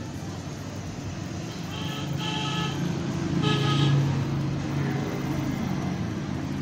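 A motor vehicle passing, its engine rumble swelling to a peak about four seconds in, with a horn tooting twice, about two seconds in and again about three and a half seconds in.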